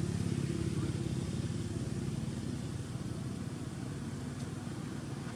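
A motor engine running steadily, off-screen, its low hum strongest in the first couple of seconds and then fading somewhat.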